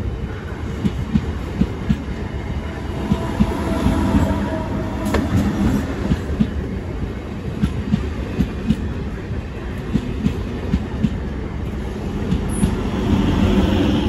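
A MEMU electric multiple-unit train rolling past on the adjacent track: a steady rumble with the wheels clacking over rail joints about twice a second, and a faint wheel squeal a few seconds in.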